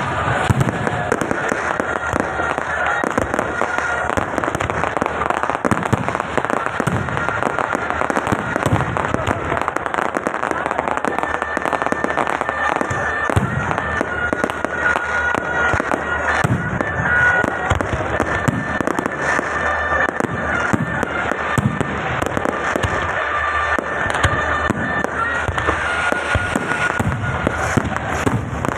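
Fireworks and firecrackers going off in a dense, continuous stream of crackling and popping, with no pause.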